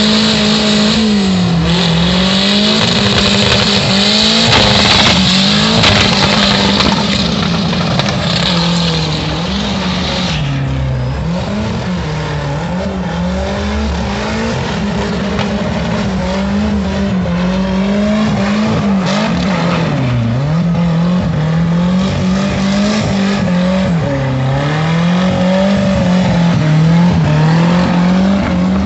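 Volkswagen Gol engine held at high revs during a burnout and donuts. The revs repeatedly sag and climb back as the tyres spin. The tyres squeal loudly for about the first ten seconds, then less.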